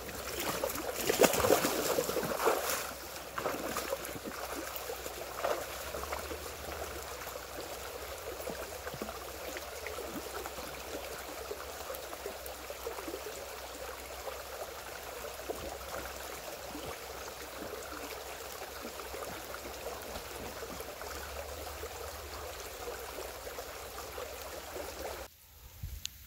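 Flowing river water, a steady rush of running current, louder and more uneven for the first few seconds, then even, until it drops away sharply near the end.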